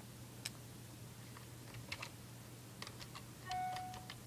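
Computer keyboard keys clicking now and then, faintly, with a short electronic beep about three and a half seconds in.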